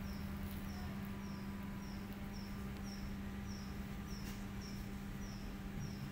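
A bird repeating a short high chirp, evenly, about twice a second, over a steady low hum.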